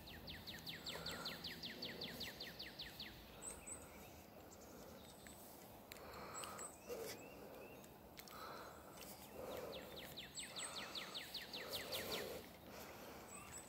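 A songbird sings a rapid trill of quick falling notes, about nine a second, lasting some three seconds. It sings twice, at the start and again about ten seconds in.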